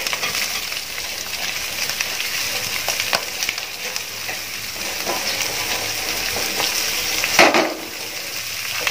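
Hot oil sizzling steadily in a large metal pot as a heap of sliced onions is tipped in on top of frying green chillies and curry leaves, with a few light clicks. A brief, louder clatter comes about seven and a half seconds in.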